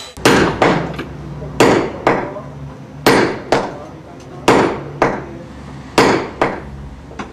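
Hammer blows struck in a steady rhythm of pairs, a heavier blow followed by a lighter one, about every second and a half, each ringing briefly.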